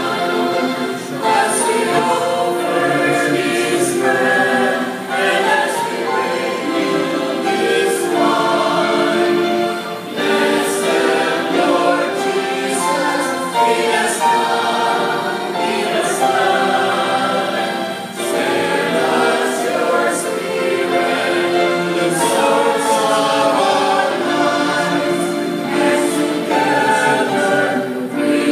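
Mixed choir of men and women singing a hymn in harmony, with electronic keyboard accompaniment.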